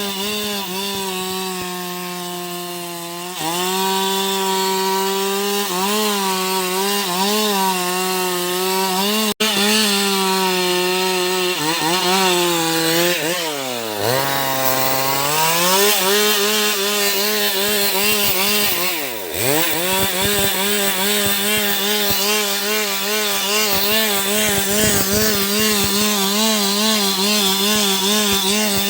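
Stihl MS 382 single-cylinder two-stroke chainsaw at full throttle cutting through a large teak trunk, its pitch wavering under load. About halfway through, and again a few seconds later, the engine drops sharply toward idle and revs back up.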